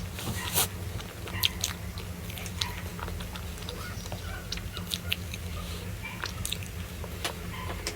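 Close-up eating sounds: biting and chewing with irregular sharp crunches.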